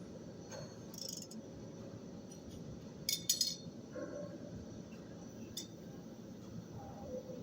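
Light metallic clinks and clicks, a handful spread over several seconds with a quick pair about three seconds in the loudest, over a steady low hum.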